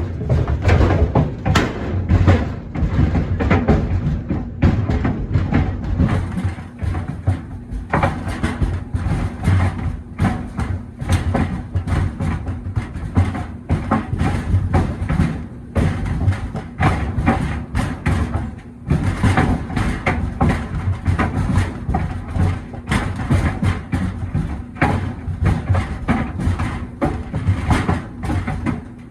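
Steel-toe boots tumbling in a clothes dryer drum, knocking and thudding against it irregularly, several times a second and without a break.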